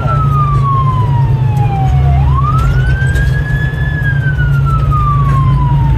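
Fire truck siren wailing: the pitch glides slowly down, swoops back up about two seconds in, holds high, then glides slowly down again, about once every four seconds. Under it is the truck's steady low engine and road rumble, heard from inside the cab.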